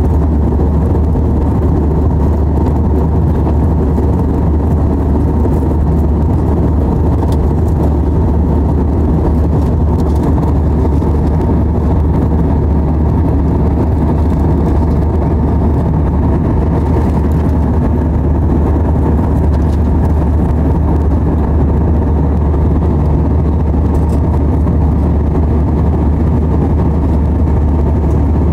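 Airliner cabin noise in cruise flight: the steady, loud drone of the jet engines and rushing air, heaviest in the deep bass and unchanging throughout.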